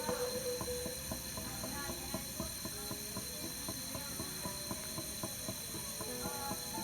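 Teeth grinding: rapid, irregular clicking and grating, with brief squeaks between the clicks.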